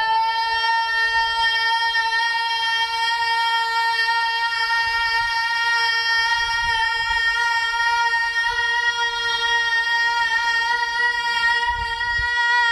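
A young woman's voice holding one long, steady, fairly high sung note without a break, in a contest to see who can hold a note longest, inside a pedestrian tunnel.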